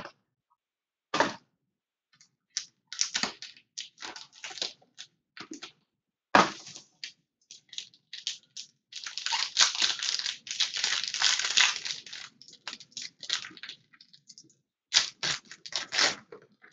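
Hands tearing and crumpling a gold foil trading-card pack wrapper: a crackling, crinkling rustle in many short bursts, densest about halfway through, with a sharp knock just after the start and another about six seconds in.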